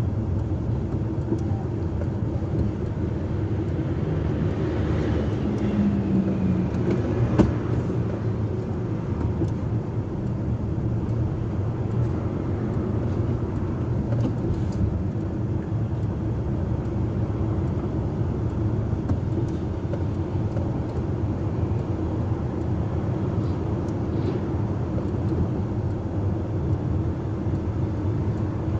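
Heavy diesel engine running steadily with a low rumble. A short hum rises over it about five seconds in, and there is one sharp knock a little after seven seconds.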